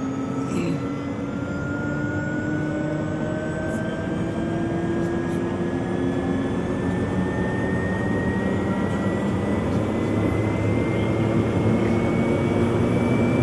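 Pilatus PC-12NG's PT6A turboprop engine spooling up during its start, heard from inside the cockpit: a steady whine that rises slowly in pitch and grows gradually louder as the gas generator accelerates toward idle.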